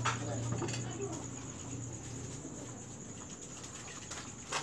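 Quiet kitchen background: a steady low hum and a faint steady high tone, with a short metal clink at the start and another near the end as a ladle knocks against a metal pot of pancake batter.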